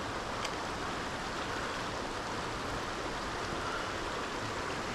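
River water flowing steadily, an even rushing hiss.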